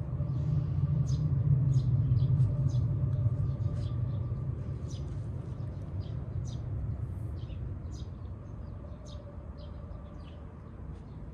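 A vehicle passing by, its low rumble swelling in the first few seconds and fading away. Birds chirp in short high calls throughout.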